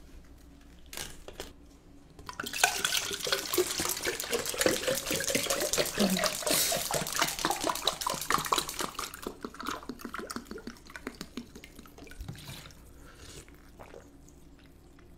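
A drink poured from a plastic bottle into a glass mug for about seven seconds, splashing, with the pitch rising as the glass fills.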